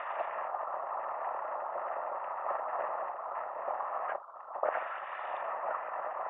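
Fast-flowing stream rushing steadily, dropping away briefly for about half a second near the four-second mark.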